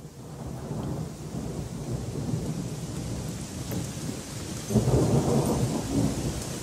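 Rain falling with rumbling thunder, a storm sound effect laid in as a song's intro. The low rumble grows louder about five seconds in.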